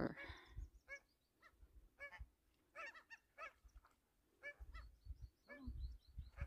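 Geese honking: a string of short, faint calls, roughly one or two a second, with a low rumble near the end.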